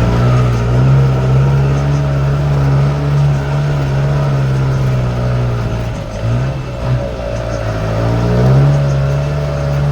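Vehicle engine running steadily under load. Its pitch drops and wavers about six seconds in, then climbs back up about two seconds later.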